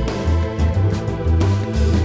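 Electronic background music with a pulsing bass line and a steady beat.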